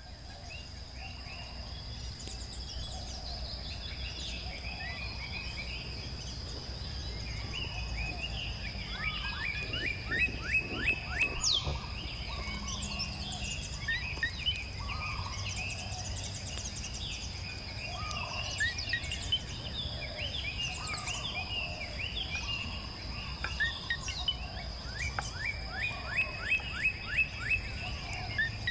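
Several birds singing and calling, with many short chirps and quick trills, over a steady high-pitched whine and a low steady rumble.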